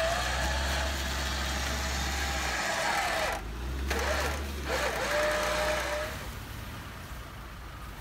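Electric winch on a Jeep Wrangler's front bumper whining under load as it drags the mud-stuck Jeep forward, over a steady low engine hum. The whine wavers in pitch, cuts out briefly twice around the middle and dies away about six seconds in.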